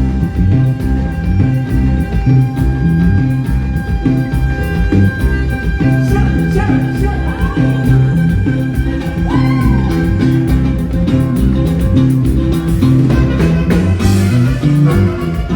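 Regional Mexican band music: a steady bass and rhythm line with guitar and drums under a long held melody line, with no clear singing.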